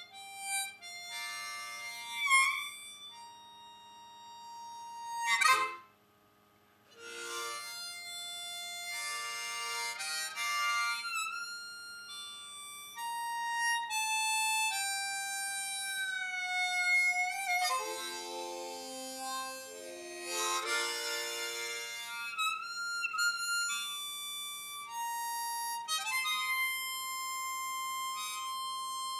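Harmonica playing a freeform tune of held notes, with a long downward slide in pitch in the middle and several notes sounding together at times; it breaks off briefly just before six seconds in.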